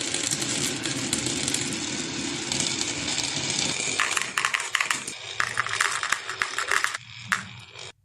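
Marbles rolling and clattering down a marble run. A dense rolling rattle fills the first half, then quick sharp clicks of marbles knocking against the track and each other, dying away and cutting off just before the end.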